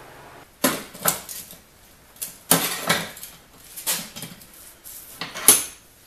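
Steel angle-iron frame rails and their locking-plier clamps clanking as they are handled and shifted: a series of about eight sharp metal knocks and rattles, the loudest about two and a half and five and a half seconds in.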